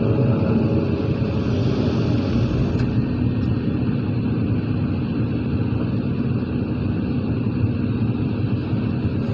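Excavator's diesel engine and hydraulics running steadily under load as it swings a full bucket of soil over to a dump truck, a continuous drone with faint steady high tones above it.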